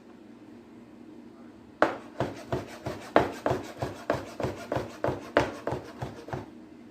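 A knife chopping through sausage onto a cutting board: a run of about fifteen quick, sharp knocks, roughly three a second, starting about two seconds in and stopping shortly before the end.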